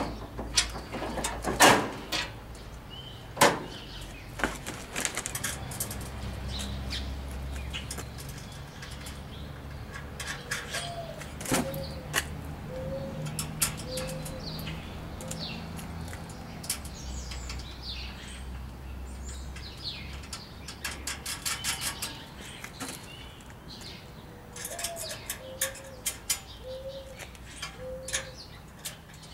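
Metal grill parts and hardware clinking and knocking as they are handled and fitted by hand, with the sharpest knocks in the first few seconds. A dove coos twice in the background, each time one higher note followed by about four lower ones, and a low hum comes and goes.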